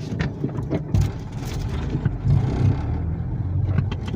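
Car driving, with steady engine and road rumble heard from inside the cabin and a few light knocks.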